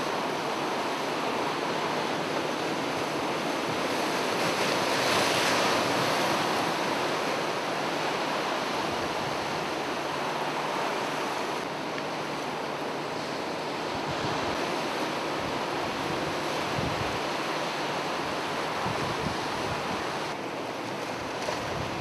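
Sea waves washing and splashing against shoreline rocks: a steady rushing noise, a little louder around five seconds in.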